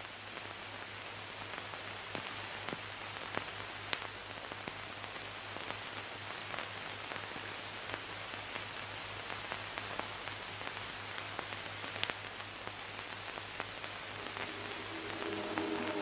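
Steady hiss with scattered sharp crackles and a low hum: the surface noise of an old film soundtrack. Music starts to swell in near the end.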